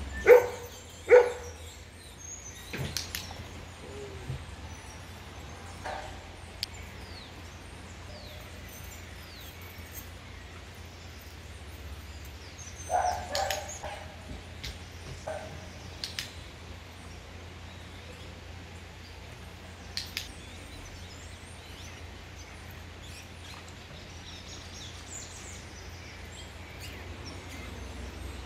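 Birds chirping over a low steady hum. Two short loud calls come about a second apart at the start, and a few more come around the middle.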